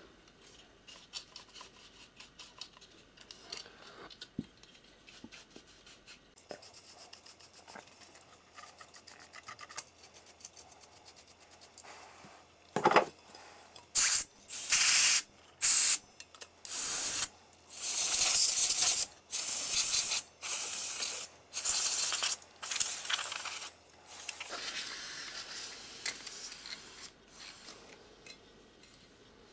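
Laptop cooling fan being cleaned. First comes the light scratching of a brush over the fan and heatsink. From about halfway there are about ten loud, short hissing bursts of compressed air into the fan, each under a second and sharply cut off, followed by one longer, softer hiss.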